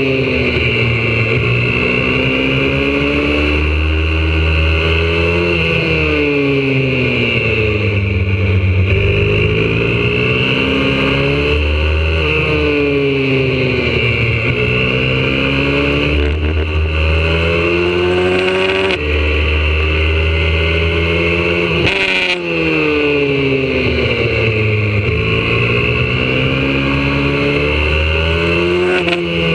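YCF 125cc four-stroke single-cylinder pit bike engine heard from on board while lapping a circuit. It revs up and falls back again and again as the rider accelerates, shifts and brakes, with a steady hiss under it.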